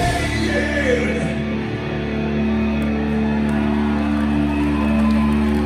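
Live metal band's final chord held and ringing out through the amplifiers at the end of a song, a steady sustained drone.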